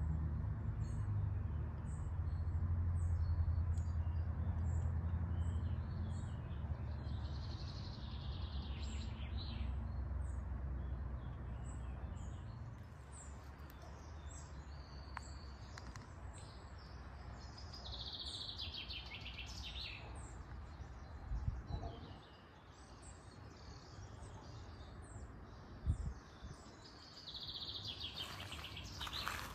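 Songbirds calling: one bird gives a short high chirp about twice a second while another sings three longer warbling phrases. A low rumble fades out in the first several seconds.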